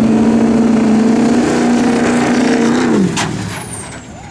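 Diesel pickup trucks drag racing, their engines at full throttle in a loud steady drone. About three seconds in, the engine sound falls in pitch and drops away, leaving a high whistle that slides down in pitch.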